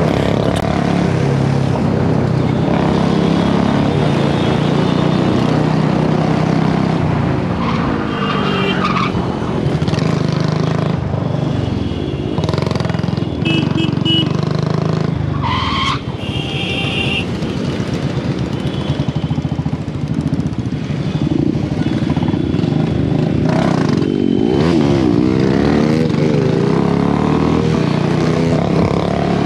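Royal Enfield Bullet 350's single-cylinder engine running under way, heard from the rider's seat. The revs rise and fall a couple of times near the end.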